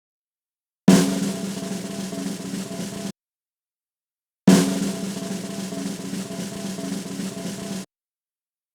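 Snare drum roll, played twice: a roll of about two seconds, then after a short gap a longer roll of about three seconds. Each begins with a louder accent and holds steady before cutting off abruptly, a suspense drum roll sound effect.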